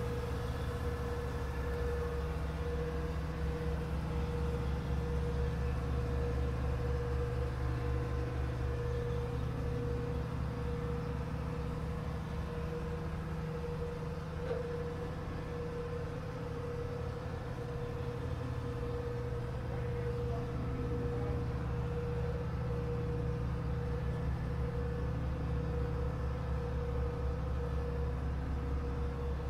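Heavy equipment engine idling steadily: a constant low drone with a steady mid-pitched whine over it.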